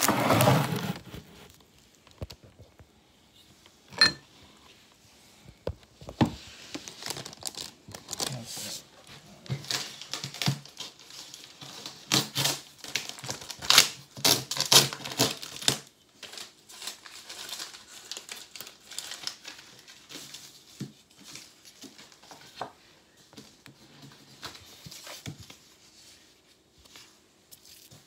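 Plastic shipping bag and plastic wrap being handled and pulled off a styrofoam shipping box: irregular crinkling and tearing rustles, with a single sharp click about four seconds in.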